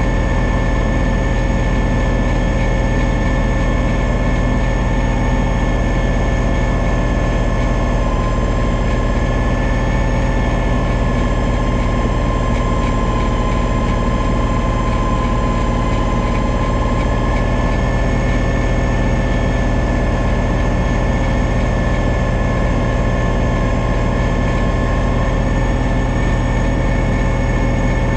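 John Deere 2032R compact tractor's three-cylinder diesel running steadily with its front-mounted 60-inch snow blower throwing deep snow, a constant hum with a high steady whine over it.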